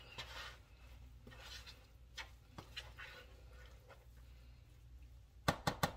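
Metal spoon mixing moist bread stuffing in a bowl: faint stirring and scraping with scattered clicks, then a quick run of sharp clicks near the end as the spoon knocks against the bowl.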